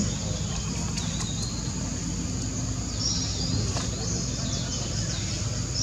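Outdoor ambience: a steady low rumble with a constant thin high whine, and a cluster of short high chirps about three to four seconds in.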